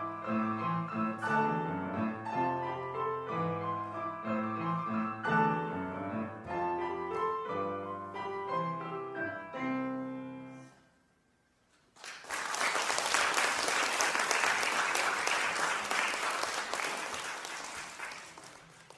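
Chamber trio playing classical-style music that ends on a held note about ten seconds in. After a second of silence an audience applauds, the clapping thinning out near the end.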